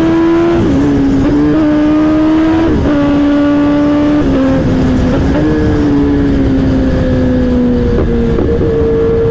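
Kawasaki ZX-10R inline-four engine running loud at high revs while riding, through an exhaust with its dB killer removed. The engine note creeps up and dips briefly several times, then eases down slowly near the end, over wind rush.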